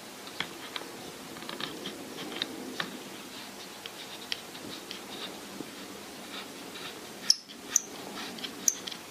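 Light clicks and scrapes of a camera being fitted and fastened onto a camera slider's mount, with a few sharper, louder clicks near the end.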